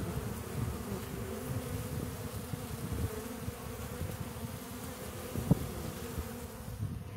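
A crowd of honeybees buzzing as they fly and feed at an open feeder: a steady, even hum, with one brief click about two-thirds of the way through.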